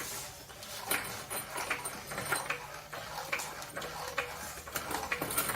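Light metallic clicks and knocks, roughly two a second, as a floor jack is worked and brought up to bear just barely against the engine to hold it.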